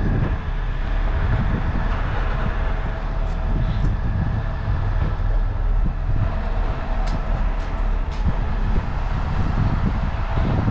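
A trailer-mounted sewer jetter's engine and high-pressure water pump running steadily.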